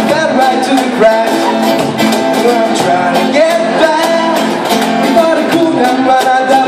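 Music with singing over guitar and a busy beat of short percussion strokes.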